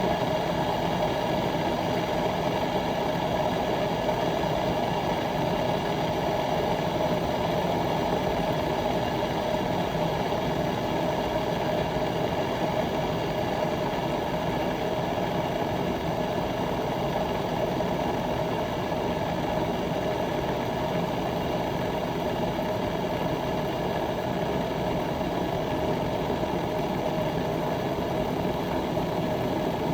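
Bodum gooseneck stainless steel electric kettle heating water: a steady, even rumbling noise of the water, with no change in level.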